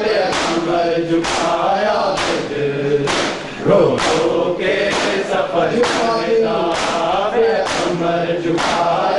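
Men's voices chanting a noha in chorus, with the rhythmic slaps of hands striking bare chests (matam) keeping a steady beat a little more than once a second.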